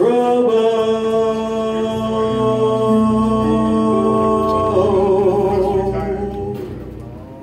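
Live blues singer and band holding one long note, the voice wavering with vibrato about five seconds in before the sound fades away near the end.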